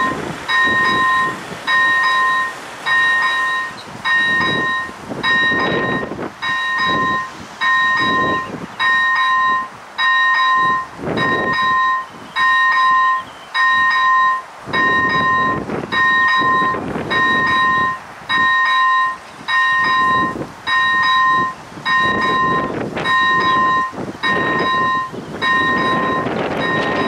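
Electronic level-crossing bell (E Bell ZV 01) ringing a steady two-tone ding about once a second, the warning that the crossing is closed for a train. A low rumble swells and fades underneath.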